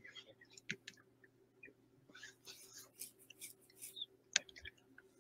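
Faint scattered clicks and small handling noises over a low steady hum, with one sharper click about four seconds in.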